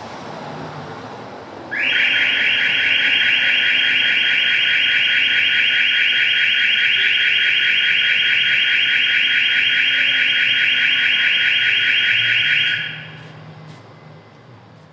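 Building alarm sounding: a loud, high-pitched, rapidly pulsing tone that starts about two seconds in, rings steadily for about eleven seconds, then cuts off and fades away near the end.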